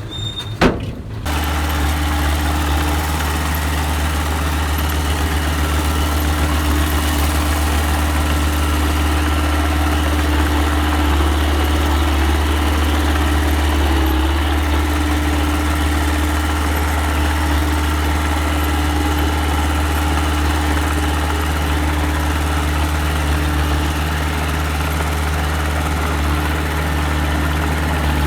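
Engine of a small earthmoving machine running steadily at one constant speed, a low, even hum. It comes in abruptly about a second in, after a quieter moment with a couple of sharp clicks.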